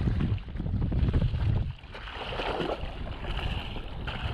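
Wind buffeting the microphone in low gusts, easing off about two seconds in, then choppy seawater hissing and splashing against a jet ski's hull.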